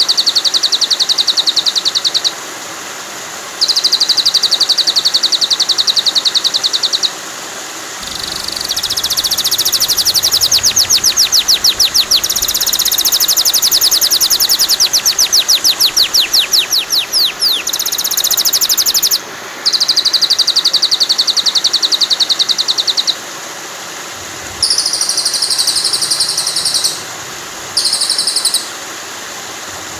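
Recorded songbird trills of a white-rumped shama training track: repeated bursts of rapid, high-pitched trills lasting a few seconds each with short gaps, and a longer run of fast falling sweeps in the middle. Steady running water hisses underneath throughout.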